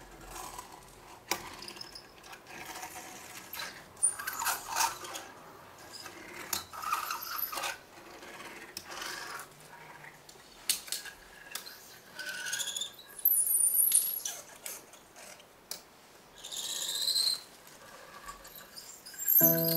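Assorted small handling noises: scattered clicks, rubbing and scraping, with two short squeaks. Near the end a digital piano starts playing chords.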